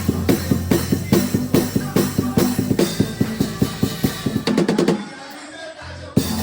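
Drum kit played along with a band track, with a steady beat of kick and snare under bass and guitar. About four and a half seconds in comes a quick drum fill, then the music drops away for about a second before a loud hit brings the full band back in.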